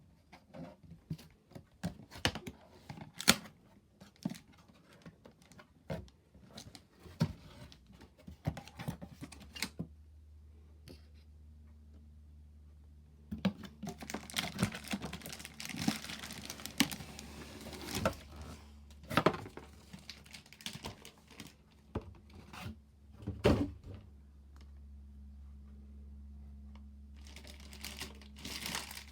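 Packaging being handled and torn open: tearing and crinkling, with many sharp clicks and knocks.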